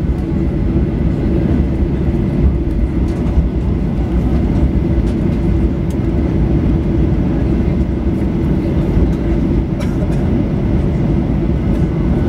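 Cabin noise of a Boeing 737-800 taxiing, heard from a seat over the wing: its CFM56-7B engines at low taxi power and the rolling airframe give a steady low rumble with a constant hum and a faint high whine, holding level with no spool-up.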